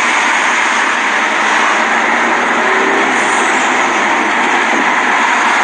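Loud, steady rush of wind and road noise inside a car moving at speed.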